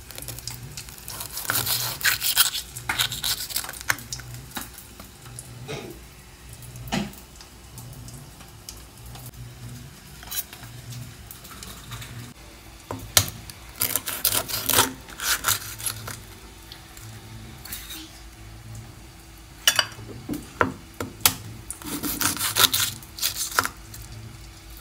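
Kitchen knife cutting boiled salted duck eggs on a wooden chopping board: scraping of the blade through the egg and knocks of the blade on the board, in three spells of activity.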